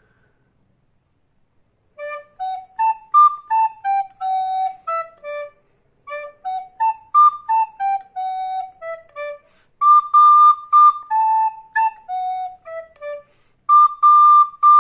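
Soprano recorder playing a short study in D major, starting about two seconds in. A phrase climbs from low D through F sharp and A to high D and steps back down, and is played twice. It then moves to three high Ds, descends A, F sharp, E to low D, and begins that line again near the end.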